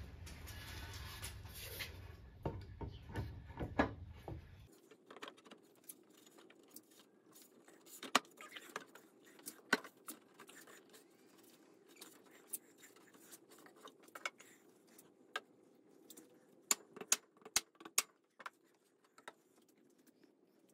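Scattered light clicks and knocks from the wooden seat and cast-iron frame of a restored school desk being handled and folded. A steady low hum runs under the first few seconds and cuts off abruptly about four and a half seconds in.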